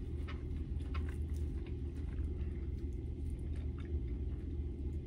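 Quiet eating sounds: chewing and fingers pulling apart fried chicken wings, heard as faint scattered clicks and smacks over a steady low hum.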